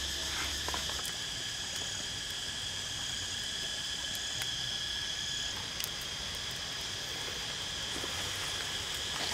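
A steady, high-pitched chorus of insects, several tones sounding together without a break.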